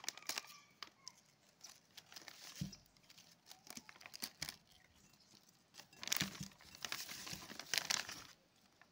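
Black plastic bag crinkling and rustling as it is pulled off a bagged guava. It comes in bursts, with the longest and loudest stretch from about six to eight seconds in.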